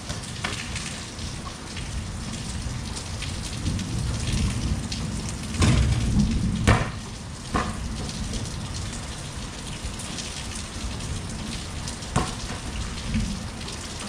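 Steady rain falling on an outdoor concrete basketball court, with a few sharp knocks a little past halfway through and once more near the end.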